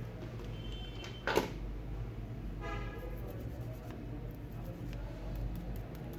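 Steady low background hum with one sharp click about a second in, and a short, faint pitched tone near three seconds in.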